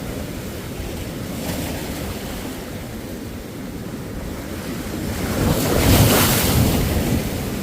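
Ocean surf: a steady wash of waves, with one wave building and breaking loudest about six seconds in.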